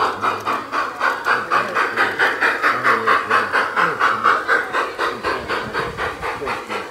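G-scale model steam locomotive chuffing steadily while running, about four even chuffs a second.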